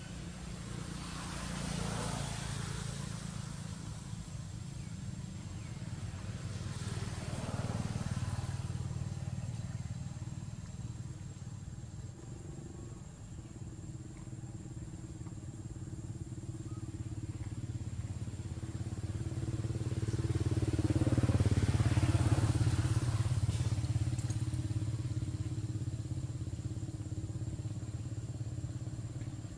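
Engine hum of passing motor vehicles, swelling and fading three times, loudest about two-thirds of the way through.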